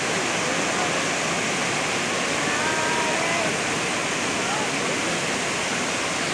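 Düden Waterfall's falling water making a steady, unbroken rush, with faint voices of people in the background.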